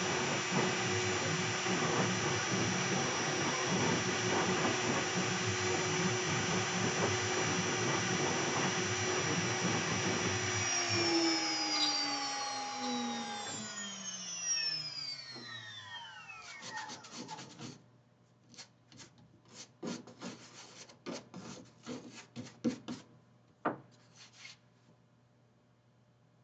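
2.2 kW air-cooled CNC router spindle running with a steady high whine, then switched off about eleven seconds in, its pitch gliding down as it spins to a stop over about five seconds. Afterwards there are scattered light rubbing and clicking sounds.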